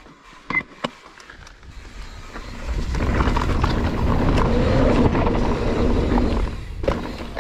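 Mountain bike running fast down a dirt trail: a few sharp knocks and rattles, then from about three seconds in a loud rush of tyre and wind noise on the microphone that eases near the end.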